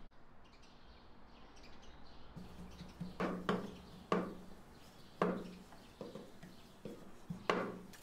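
Wooden rolling pin rolling out a sheet of dough on a floured worktop: a series of quiet strokes, each starting suddenly and fading, about one a second, beginning a little over two seconds in.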